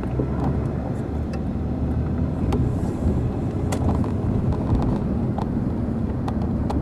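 A car driving on city streets, heard from inside the cabin: a steady low road and engine rumble with scattered light clicks and rattles.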